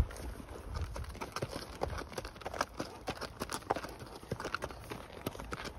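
Hooves of several ridden horses walking on a gravel track, an irregular run of clip-clopping, crunching hoofbeats.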